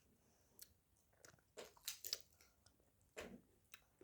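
Mouth sounds of someone biting into and chewing a chocolate-coated ice cream bar: a scatter of short, soft crunches and clicks at irregular intervals.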